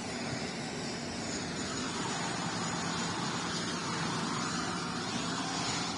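Jet engines of an Indonesian Air Force Boeing airliner running as it taxis past: a steady rushing noise with a high whine that comes in about a second in and fades near the end.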